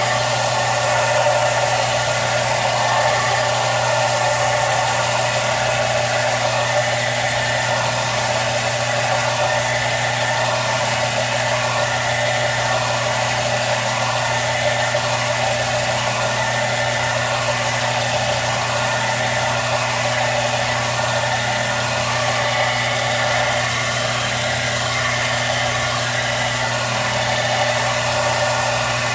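Central Machinery 4x36 belt and disc sander running steadily with a low motor hum, while muscadine vine wood is rubbed back and forth on its 80-grit belt; the rough sanding noise swells and eases with the strokes.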